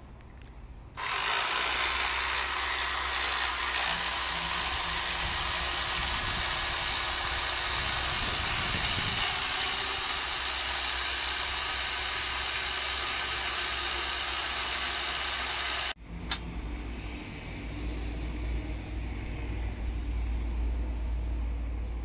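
Electric drill boring into a plastered masonry wall, running steadily for about fifteen seconds and then stopping abruptly. A single sharp click and a low rumble follow.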